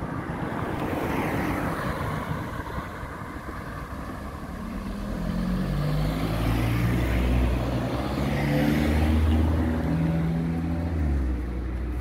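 Cars passing on the street: tyre and engine noise swelling and fading, a first pass about two seconds in and a louder one from about five to eleven seconds in, with a low engine hum that steps in pitch.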